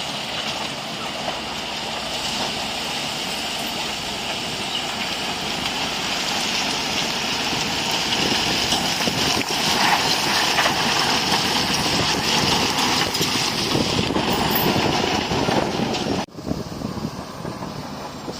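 Bulldozer's diesel engine running steadily, growing a little louder toward the middle. The sound breaks off abruptly about two seconds before the end, and similar machine noise resumes.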